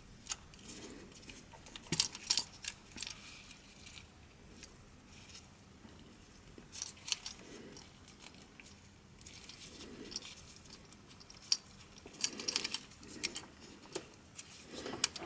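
Plastic parts of a JBL Tune 510BT headphone headband being handled by gloved hands while a thin cable is routed through it: scattered sharp clicks and light rustling, coming in small clusters a few seconds apart.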